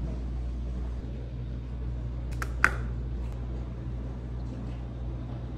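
Steady low room hum with one sharp click about two and a half seconds in.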